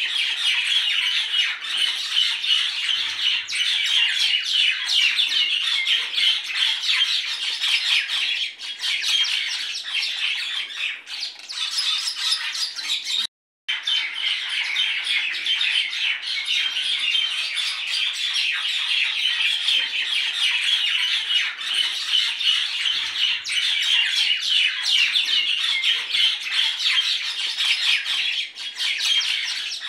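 A flock of birds calling continuously, many calls overlapping. The sound drops out to silence for a moment about halfway through.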